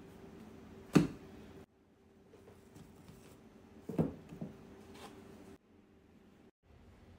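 Sourdough dough and a glass loaf pan handled on a wooden countertop: one sharp thump about a second in, then two or three softer knocks around four seconds in, over a faint steady hum.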